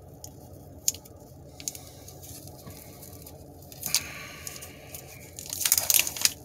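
Individually wrapped cheese stick being opened: a few faint clicks of handling, then a short burst of plastic-wrapper crinkling and tearing near the end.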